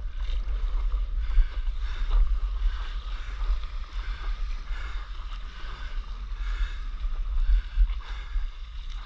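Wind buffeting the microphone with a heavy low rumble, over the hiss and irregular slap of water running along a windsurf board sailing through light chop.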